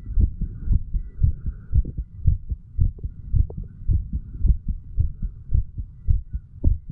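A man's heart beating, heard through the chest over the right ventricle area: a steady, regular rhythm of low lub-dub thuds. The owner takes it for valves opening and closing normally.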